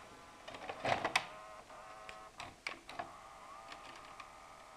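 AIWA E295DK VHS video cassette player, top cover removed, taking in a cassette: several clicks and clunks from the cassette being pushed in and the loading mechanism, over a whirring motor. From about three seconds in it settles into a steady motor hum as the tape loads.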